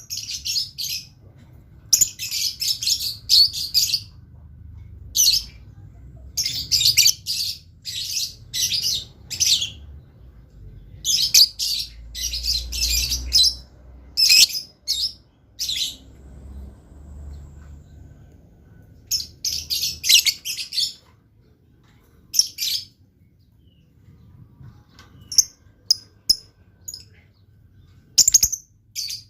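Lovebird chattering in full song: bouts of rapid, shrill high chirps, each a second or two long, broken by short pauses.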